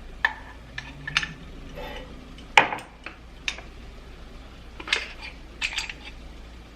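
Kitchen utensils clinking and knocking against a cooking pot: about eight to ten sharp taps at irregular intervals, the loudest about two and a half seconds in.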